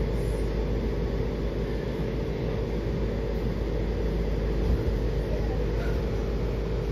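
Washington Metrorail train heard from inside the railcar: a steady rumble with a constant low hum running under it.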